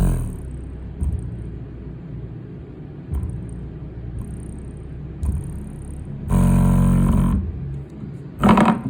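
Infinity BU-1 subwoofer's woofer, running in free air, playing deep bass notes in pulses. A louder, buzzy hit lasts about a second around six seconds in, and a shorter one comes near the end.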